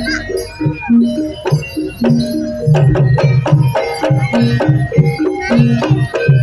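Live jaranan gamelan music: kendang drum strokes driving a brisk, steady rhythm under repeating struck gong-chime notes.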